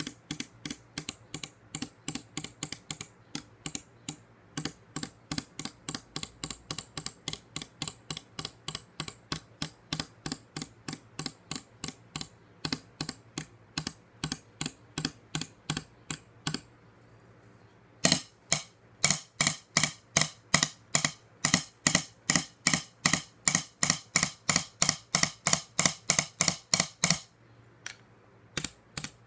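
A drumstick striking a wooden tabletop in a steady run of quick taps, about four a second. After a pause of over a second the strokes start again much louder, stop, and a few more come near the end.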